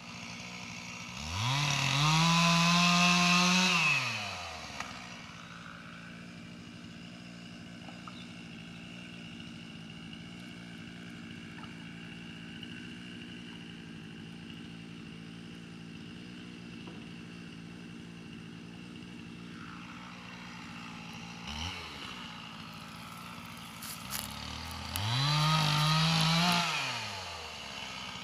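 A small engine idling steadily and revved up twice, each time rising quickly in pitch, holding high for about two seconds and dropping back to idle, with a brief blip of the throttle in between.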